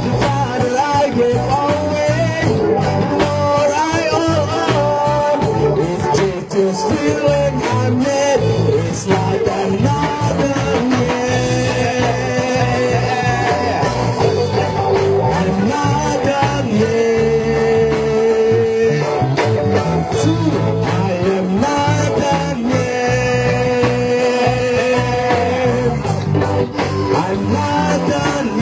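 A band playing live with a lead vocal, over a steady bass line and beat.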